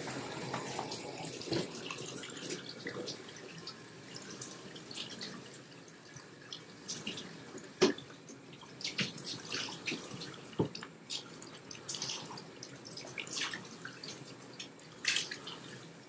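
Water running and splashing in a bathroom sink during face washing, with scattered splashes and drips and a sharp knock about eight seconds in.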